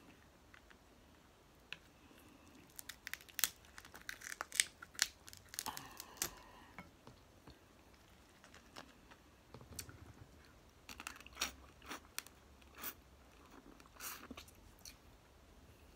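Snow crab leg shells cracking and snapping as they are broken apart by hand and bitten, with crunching and chewing. The sharp cracks come in two spells, the first starting about three seconds in and the second about ten seconds in.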